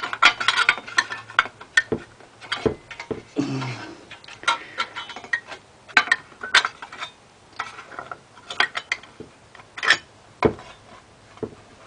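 Irregular metallic clicks, clinks and knocks as the sheet-metal heat shield is worked loose and pulled out from a Predator 212 engine.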